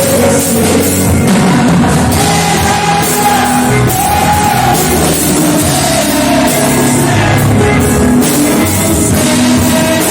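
Loud worship music from a band with drums, with a voice singing held notes over it.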